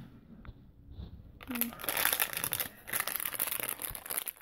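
Plastic Ring Pop candy wrapper crinkling as it is handled in the hand. The crinkling comes in fits from about a second and a half in.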